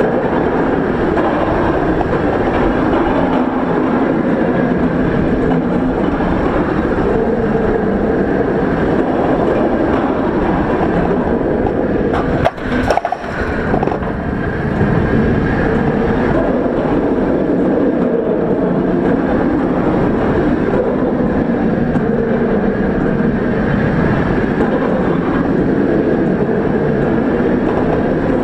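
Steel roller coaster train running on its track, heard from a camera mounted on the train: a steady rush of wind on the microphone with the rumble of the wheels on the rails. The noise briefly breaks off about thirteen seconds in, then carries on.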